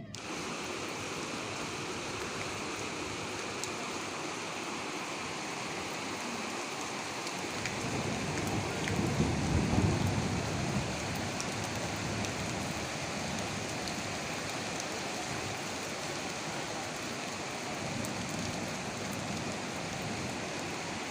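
Steady, heavy rainfall: an even hiss of rain on surfaces with scattered individual drop ticks. A low rumble swells and fades about eight to eleven seconds in.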